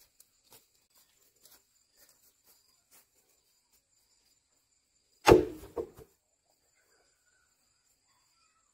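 Faint, steady high trilling of insects with scattered small ticks. About five seconds in comes one loud knock, quickly followed by a second, smaller one.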